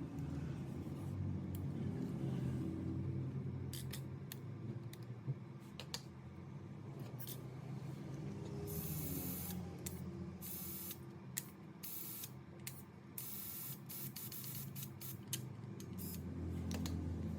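Several short hissing spray bursts and sharp clicks, over a low steady rumble.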